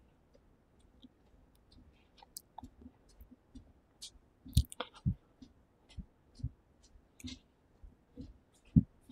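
Footsteps walking on a concrete walkway: soft low thumps about every half second to second, with light clicking handling noise from the handheld camera. The footsteps grow clearer about halfway through.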